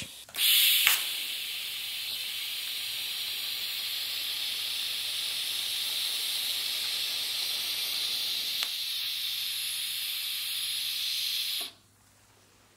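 TIG welding arc: a louder burst as the arc starts, then a steady high hiss for about eleven seconds that cuts off suddenly near the end.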